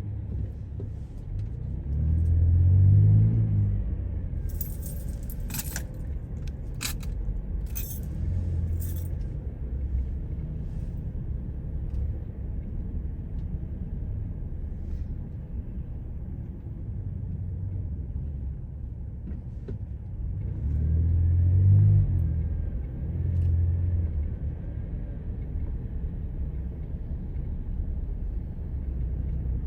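Car driving in slow traffic, heard from inside the cabin: a steady low rumble of engine and road noise that swells louder twice. A short run of sharp clicks and rattles sounds about five to nine seconds in.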